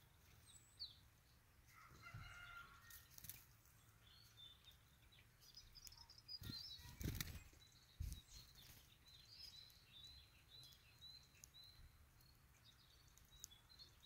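Small birds' wings flapping as they take off from the ground, loudest about seven seconds in, followed by a sharp tap. Faint high chirps from small birds sound through the second half.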